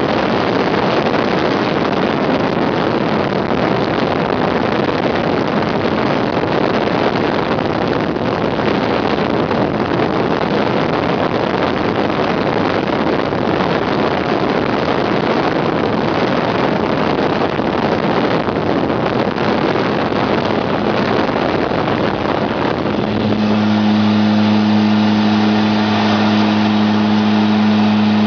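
Twin Garrett TPE331 turboprop engines and propellers of a Mitsubishi MU-2 at takeoff power, heard from inside the cabin as a loud, even rush during the takeoff roll. About 23 seconds in the rush thins and a steady low drone with a clear pitch takes over as the aircraft climbs away.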